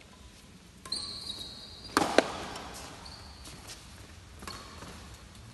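Badminton doubles rally: a sharp racket strike on the shuttlecock about two seconds in is the loudest sound. Around it come several short high squeaks of players' shoes on the court floor.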